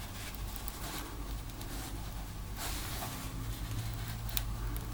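Scraping, rustling and light clicks as a plastic pry tool works the cracked digitizer glass free of its heat-softened adhesive on a Samsung Galaxy Tab 3, with a low hum under it in the second half.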